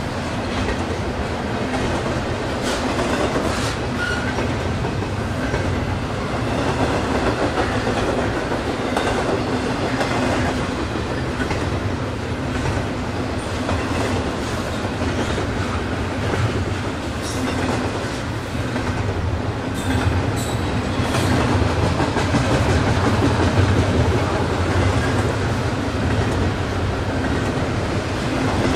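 Double-stack intermodal container train rolling past: a steady rumble of steel wheels on the rails, with repeated clicks as the wheels cross rail joints.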